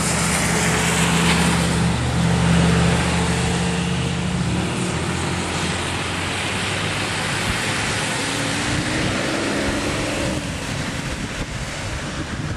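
Wind buffeting the microphone in the rain, with a vehicle engine humming low and steady that drops away about four seconds in; fainter traffic is heard after.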